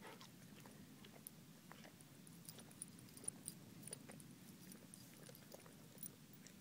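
Yellow Labrador licking ice on the ground: faint, scattered mouth clicks and ticks, the sharpest about three seconds in, over a low steady hiss.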